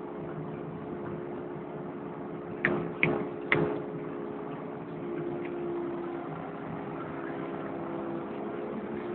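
Kubota KX080 excavator's diesel engine running steadily while it digs, with three sharp knocks a little under three seconds in. The engine note firms up slightly about five seconds in as the bucket lifts a load of reedy spoil.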